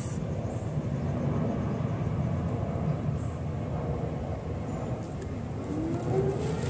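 A steady low rumble. About five and a half seconds in, a fire station siren starts winding up, rising steadily in pitch.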